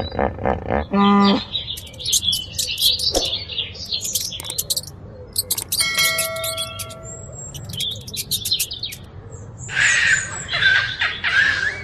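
Birds chirping and calling: repeated high chirps with a run of steady whistled notes partway through and a dense burst of chirping near the end. A short, loud, low-pitched call comes about a second in.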